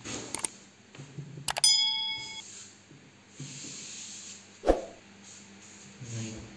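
Mouse clicks and a ringing bell-like ding from a subscribe-button animation overlay: quick clicks at the start, then a chime about one and a half seconds in that dies away within a second. A single sharp thump follows about five seconds in.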